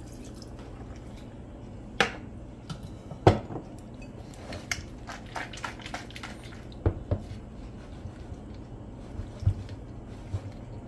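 Kitchen containers and utensils clinking and knocking: several separate sharp knocks spread out, the loudest about two and three seconds in.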